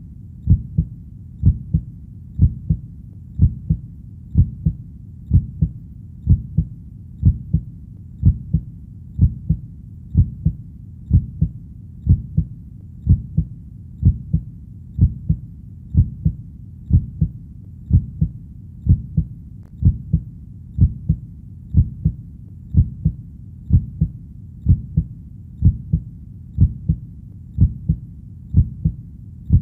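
Heartbeat sound: a steady, low lub-dub double thump repeating about once a second.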